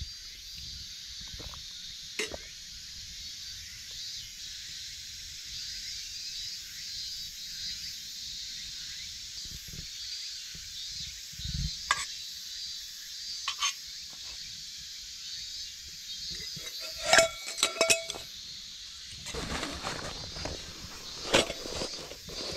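Light metal clicks and a short ringing clatter as a small alcohol stove and its metal parts are handled and packed away, loudest a few seconds before the end. Then the rustle of a fabric storage bag being handled, over a steady high drone of insects.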